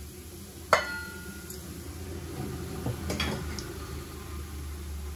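A steel bowl clinks once sharply against a metal kadai, with a brief metallic ring, after tipping spices into the pan. A few softer knocks and rustles follow about two to three seconds in, over a steady low hum.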